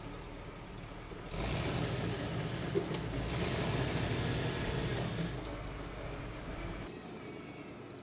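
Loaded lumber cart rolling on narrow steel rails across a wooden plank deck, a rumble that grows louder about a second in and eases off after about five seconds.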